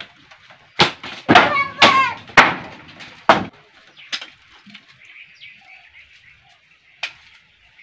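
A rickety wooden door in a corrugated iron wall being pushed and knocked: several loud bangs in the first three seconds or so, one with a creaking squeal, then a fainter knock or two.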